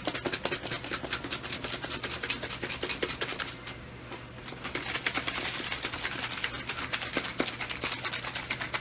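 Rice and side dishes rattling and knocking inside a gold-coloured Korean old-style lunchbox (yennal dosirak) as it is shaken hard by hand to mix the contents. The rapid rattling eases briefly around four seconds in, then comes back louder.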